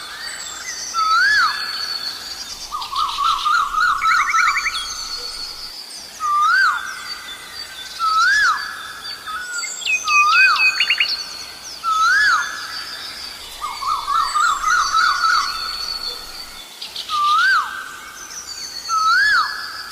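Asian koel calling: a clear whistled note that swoops up and drops, repeated every second or two. Twice it breaks into a rapid run of quick notes. Other small birds chirp faintly and high in the background.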